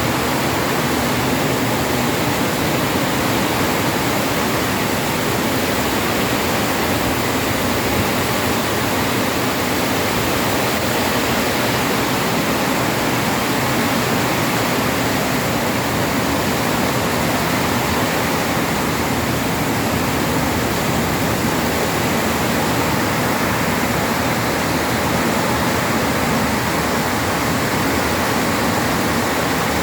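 Heavy rain pouring down steadily, a dense, unbroken hiss.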